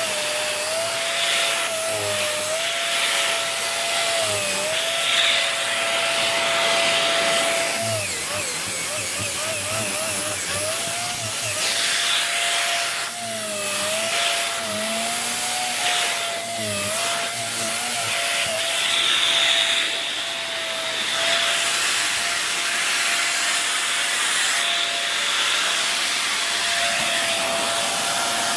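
Dyson Big Ball Animal cylinder vacuum running with its tangle-free turbo tool on upholstery: a steady motor whine that dips briefly in pitch several times as the nozzle is pressed down and lifted, over the rushing and scrubbing of the air-driven brush bar on the fabric. The turbo brush is noisy.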